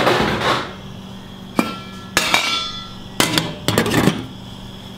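Metal pot lids and cookware clanking: several sharp knocks, some ringing on briefly. A glass pot lid with a steel rim is being hunted out and set onto a stainless steel saucepan.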